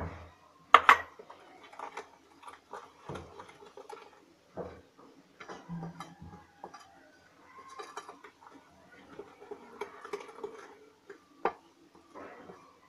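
Hand whisk beating thick cake batter in a glass bowl, with irregular taps and scrapes against the glass. A sharp knock comes about a second in and another near the end.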